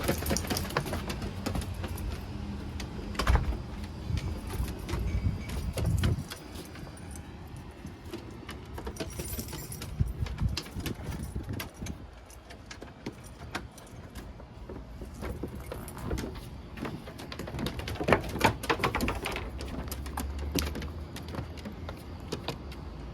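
Outdoor street noise: a low traffic rumble with many scattered clicks and rattles.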